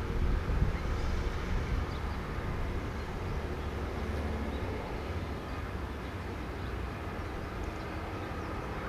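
Steady low rumble of outdoor background noise, continuous and without distinct events.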